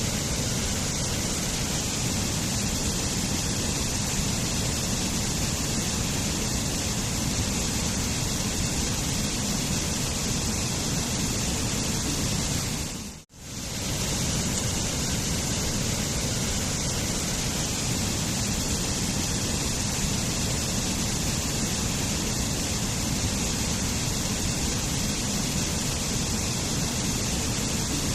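Waterfall rushing in a steady, dense roar of falling water. About halfway through the sound fades out briefly and comes straight back in.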